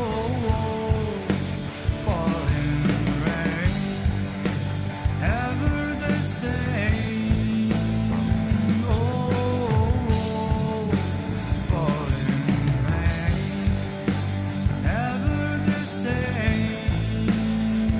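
Rock song in a passage without sung words: a drum kit keeps a steady beat under a full band, and a lead melody slides up and down between notes.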